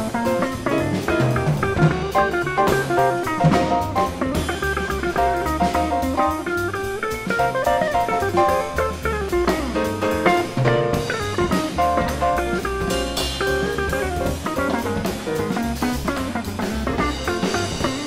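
Small jazz group recording: a guitar playing melodic lines over bass and a drum kit with cymbals, at a swinging pace.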